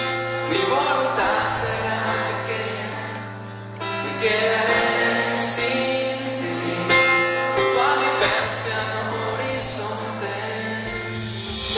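Live band music with a man singing into a microphone over acoustic guitar accompaniment, heard from the audience in a large hall.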